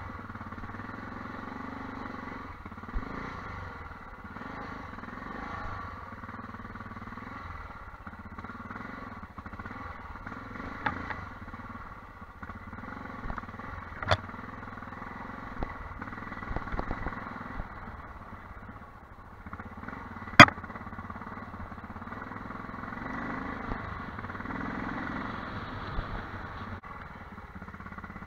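Armstrong MT500's single-cylinder four-stroke engine running at low, fairly steady revs as the motorcycle rides a rough dirt track. A sharp knock comes midway, and a louder one about six seconds later.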